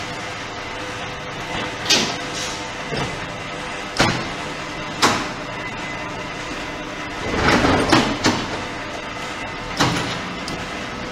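Automatic concrete brick-making machine working: a steady mechanical hum with sharp metallic knocks and clanks every second or two, several close together about two-thirds of the way through.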